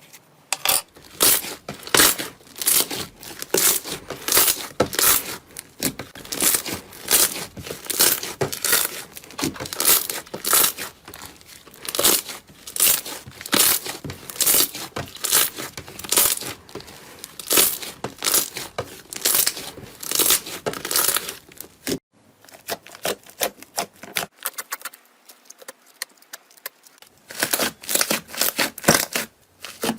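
Slime being squeezed and pressed by hand, making rapid, irregular crackling and popping clicks. The clicks thin out after about twenty-two seconds, then pick up again near the end.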